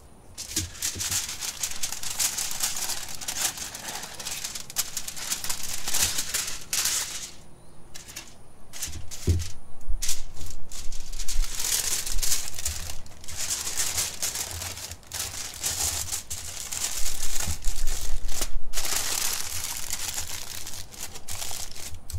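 Aluminium foil crinkling and rustling as it is folded and crimped around a rack of ribs. It comes in stretches with short pauses, loudest about halfway through and again near the end.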